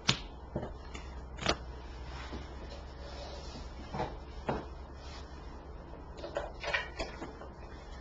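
Tarot cards being handled and set down on a table: scattered light taps and knocks, two sharper ones at the start and about a second and a half in, over a faint low hum.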